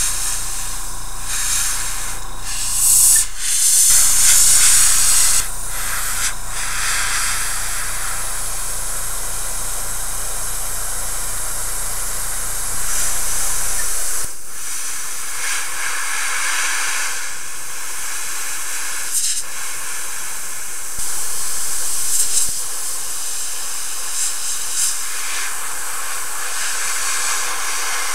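Aztek A470 airbrush hissing steadily as it sprays paint, the air rushing louder in several short surges. A low steady hum sits under it in the first half and stops abruptly about halfway through.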